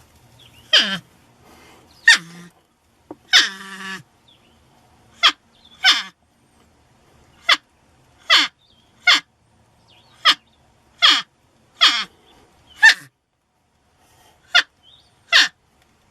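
Porcupine giving a series of short squeaky cries, about one a second, each sliding down in pitch, with one longer whining call about three seconds in.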